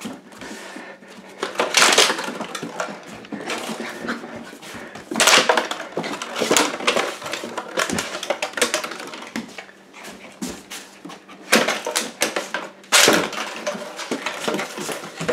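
A small dog playing on a hardwood floor: irregular scuffling, scrabbling and knocking as it darts about after its toy, with several louder bursts.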